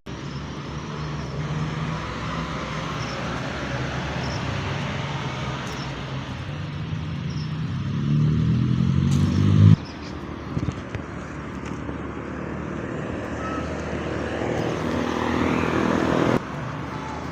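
Motor vehicle engine running with road noise, its pitch climbing as it picks up speed, then cutting off abruptly about ten seconds in; a second climb near the end also stops suddenly.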